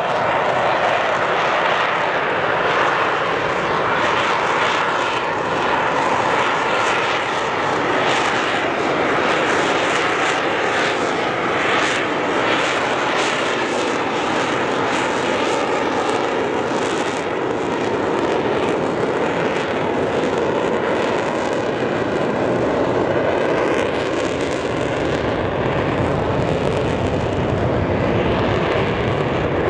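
Twin jet engines of an F/A-18 fighter roaring steadily overhead during a display flight. The roar wavers through the middle as the jet manoeuvres.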